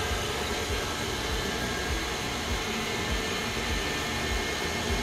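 KitchenAid Classic stand mixer running steadily on low speed, its dough hook turning through dough and flour; a constant motor hum with a whine.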